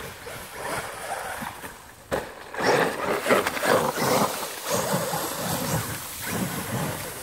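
Electric RC truck driven hard over dry leaves and dirt, its motor revving in uneven surges while the tyres churn and throw up leaves. The loudest surges come a little after the middle.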